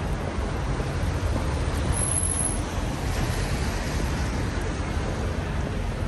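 Steady road-traffic noise on a busy wet city street: an even hiss with a low rumble underneath.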